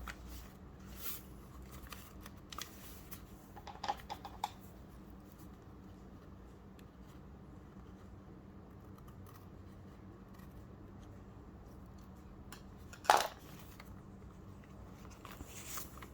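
Scissors snipping paper a few times in the first four or five seconds, then a quiet stretch, then a single louder sharp snip or tap about thirteen seconds in.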